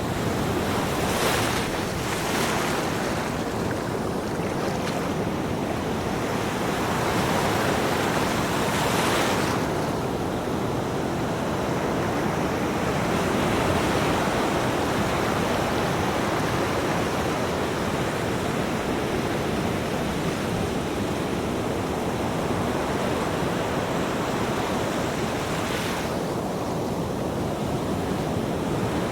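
Ocean surf: a continuous rush of breaking waves, with a few hissing surges as waves wash in, the longest about nine seconds in.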